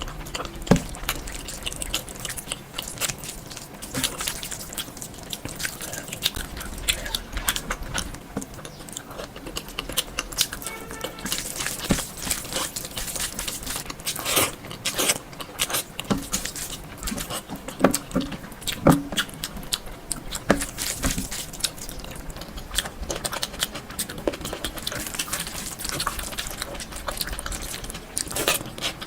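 Eating sounds: a person biting and chewing food, with many small wet, crackly mouth clicks at an irregular pace.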